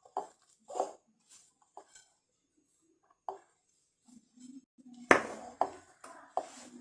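Mixing bowl and utensils knocking and clinking while tart dough is worked by hand. Scattered light knocks, with a sharper clink about five seconds in.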